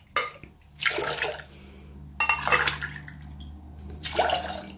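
Cold water poured from a glass jug into a drinking glass, then from the glass into a stainless steel pot of sugar, in about four short splashing pours.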